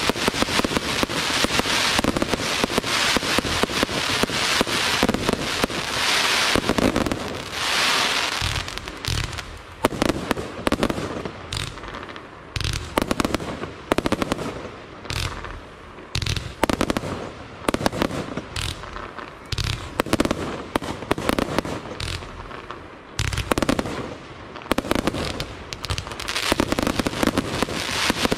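Aerial fireworks display: many shells bursting with dense, continuous crackling for about the first nine seconds, then a rapid, irregular run of separate sharp bangs that thickens into crackling again near the end.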